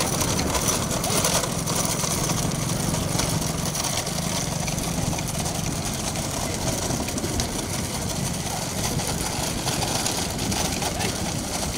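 A vehicle engine running steadily, with a constant low hum and no distinct events.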